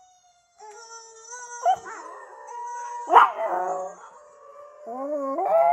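A chihuahua howling along with wolf howls from a film played through laptop speakers. The film's long, steady howls run under the dog's sharper ones; the loudest comes about three seconds in, and rising howls follow near the end.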